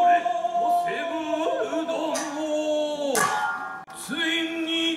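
A male voice chanting biwa-gatari in long held notes that bend and waver, with two sharp biwa strikes about two and three seconds in. The voice breaks off briefly near four seconds, then holds a note again.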